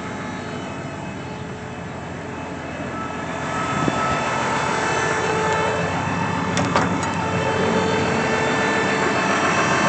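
Farm tractor engine running steadily, getting louder about three and a half seconds in, with a few short clicks near the middle.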